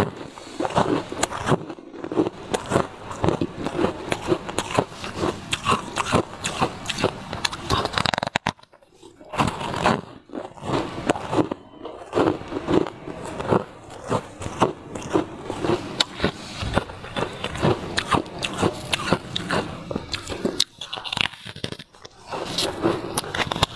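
Hard ice being bitten and crunched between the teeth, close to the microphone: a dense run of sharp cracks and crackles as the chunks are ground up, with a brief pause about nine seconds in.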